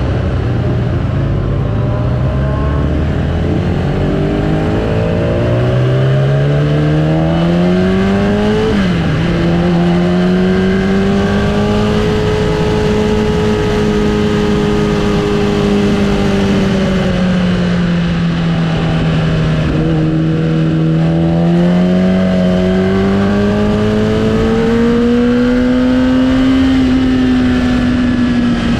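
Sportbike engine heard from on board at speed, its revs climbing steadily, then dropping sharply at a gear change about nine seconds in. The note holds, sags for a few seconds past the middle, and climbs again near the end.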